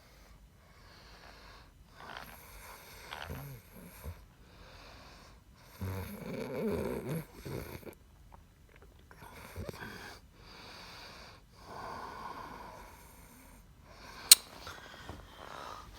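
Snoring, one noisy breath after another every second or two, the strongest about six seconds in, with a single sharp click a couple of seconds before the end.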